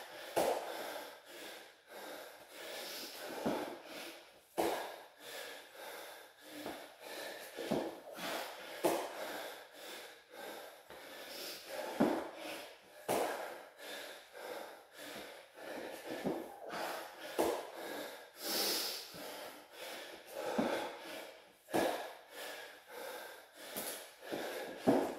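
Heavy breathing of a man doing burpees, with repeated thuds of bare hands and feet landing on a floor mat at each rep.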